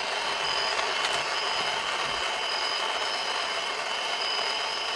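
Small handheld butane torch hissing steadily as its flame heats an electric radiator fan's thermostatic temperature probe, to bring it up to the switch-on temperature of about 180 degrees.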